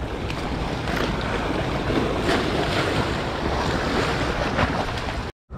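Sea waves washing and splashing over shore rocks, with wind rumbling on the microphone.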